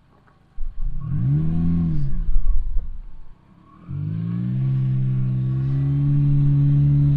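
A lifted Subaru Crosstrek's flat-four engine revving under load on a trail obstacle. One rev rises and falls, and the engine eases off around three seconds in. Then it comes back up just before four seconds and is held at steady revs, creeping slightly higher.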